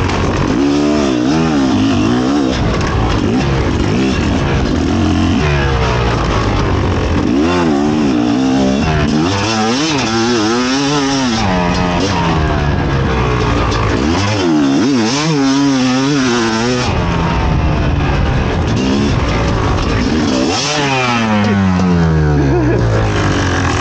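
Fantic XE 300 two-stroke enduro motorcycle engine being ridden off-road, its pitch climbing and dropping over and over as the throttle is opened and closed.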